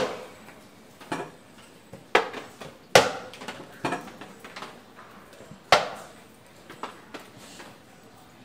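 Checker pieces clacking as they are set down and picked up on a wooden checkerboard: about six sharp knocks at irregular intervals.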